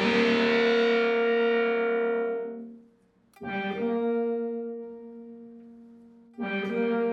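Electric guitar played through the Time Shadows effects pedal: a sustained note or chord rings and fades out, then a new one is struck about three and a half seconds in and again near the end, each left to ring.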